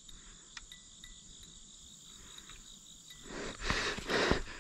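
Steady high-pitched chorus of insects, crickets by the sound of it, faint under a few small clicks. About three seconds in, louder rustling and handling noise starts up close to the microphone.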